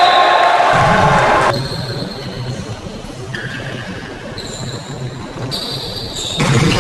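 Sounds of indoor volleyball play: voices loud for the first second and a half, then quieter hall noise with dull thuds of the ball, louder again near the end.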